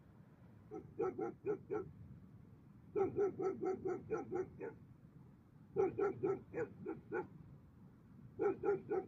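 Dogs barking in quick runs of about five to eight barks, roughly four barks a second, four runs with short pauses between.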